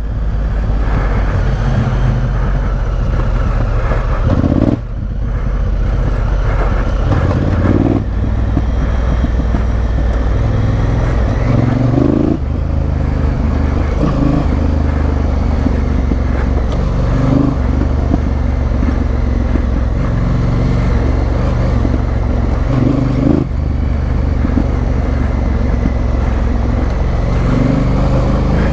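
Honda Africa Twin CRF1000L's parallel-twin engine running as the bike is ridden off road, the throttle opening and closing, with brief drops in engine note about five and eight seconds in.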